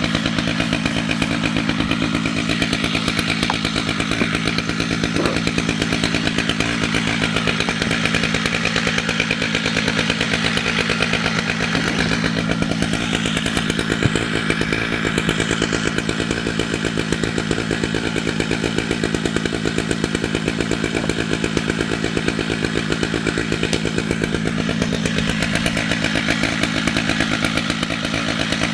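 Chainsaw running steadily at high revs under continuous load, ripping lengthwise through a red oak log in a chainsaw mill.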